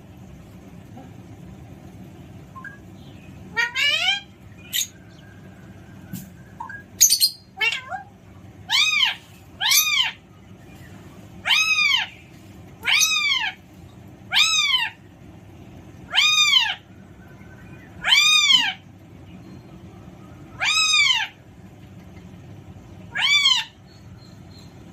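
Alexandrine parrot calling: a few sharp rising calls, then about nine short calls, each rising and falling in pitch, repeated every couple of seconds.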